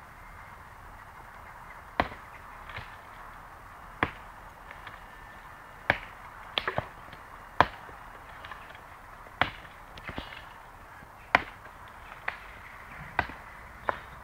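Hammer blows on the brick base of a chimney being demolished: about ten sharp, separate strikes, one every second or two, with a quick run of three near the middle.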